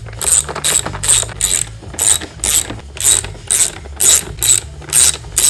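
A hand ratchet's pawl clicking in quick back-and-forth strokes, about two to three a second, as the fasteners holding the air filter housing are driven in.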